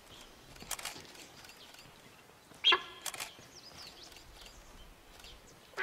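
Birds chirping in short high notes, with one short, loud animal call about two and a half seconds in, followed by a sharp click.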